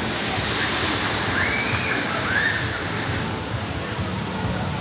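Rushing, splashing water noise, with a brighter hiss for the first three seconds or so.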